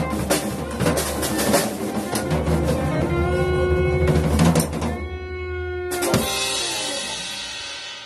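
Small band of drum kit, upright double bass and acoustic guitar playing the end of a song: busy drumming for about three seconds, a held chord, then a final hit about six seconds in that rings out and fades.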